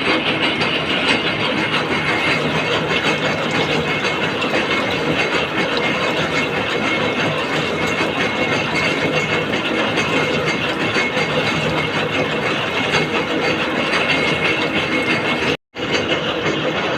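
Gear cutting machine running steadily with a dense, continuous mechanical clatter. The sound drops out completely for a split second shortly before the end.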